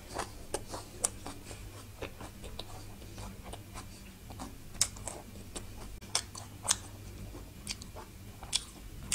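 Close-miked chewing of a mouthful of raw vegetables and salad: irregular crisp crunches and wet mouth clicks, a few louder ones about halfway through, over a faint steady low hum.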